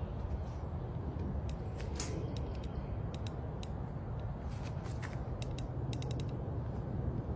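A long-handled tool clicking and creaking as it is worked against a wire-mesh cage fence: irregular sharp ticks, with a quick run of them about six seconds in.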